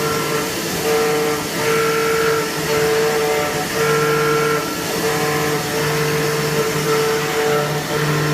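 CNC machine running while machining a core box mold: a steady mechanical hum over a noisy hiss, its tones dropping out briefly and coming back about every second as the machine works.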